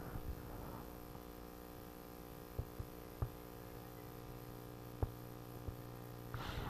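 Steady low electrical mains hum with a few faint, scattered clicks, and a faint rise of noise near the end.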